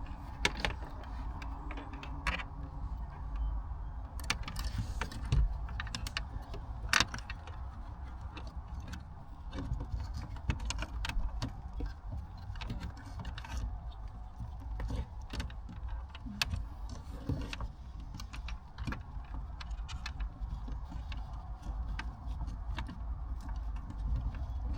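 Scattered light plastic clicks, taps and rustling as dash cam cables are fed through the vehicle's interior trim, over a steady low rumble.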